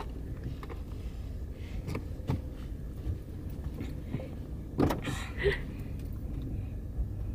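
Low steady rumble of a car's cabin with the engine running, with scattered light clicks and knocks and a short louder burst about five seconds in.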